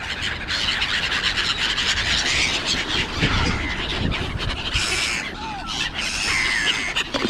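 A flock of gulls calling over one another, with short rustling and clicking handling noises close by.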